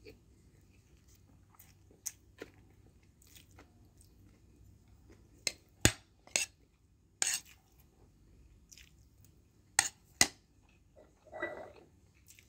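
A person eating chicken biryani close to the phone's microphone: quiet chewing broken by sharp clicks and crunches, a run of them about halfway through and two more near the end.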